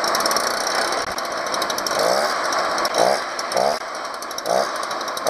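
Stihl BR 400 backpack leaf blower's two-stroke engine running, now able to hold an idle after its clogged exhaust port was cleaned and the carburetor screws adjusted. From about two seconds in, the pitch briefly rises several times in short blips.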